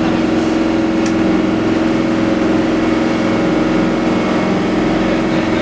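A boat's engine running steadily: a constant low hum with a faint hiss of noise over it.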